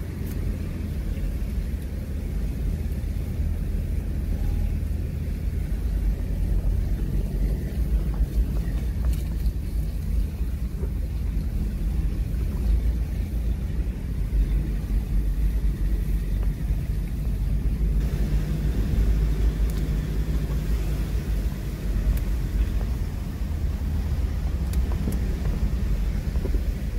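Steady low rumble of a vehicle's engine and tyres on a rough dirt and gravel track, heard from inside the cabin.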